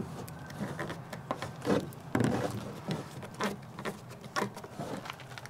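Handling a metal can of paint stripper: a string of short clicks and scrapes as the plastic childproof cap is pushed, twisted and rattled without coming off.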